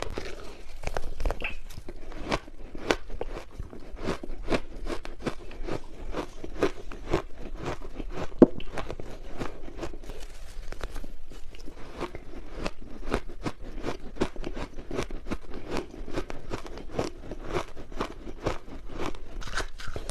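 Ice being bitten and chewed close to the microphone: a dense run of crisp crunches and crackles, with one sharp crack about eight seconds in.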